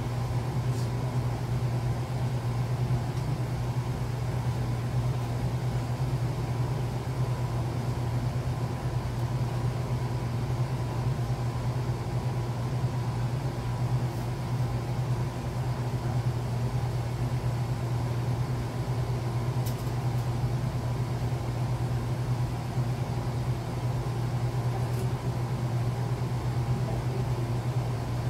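Steady low mechanical hum of running machinery, with a few faint clicks.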